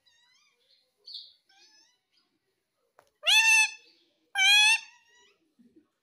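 Indian ringneck parakeet calling: a few soft chirps, then two loud calls about a second apart, each rising at the start and then held.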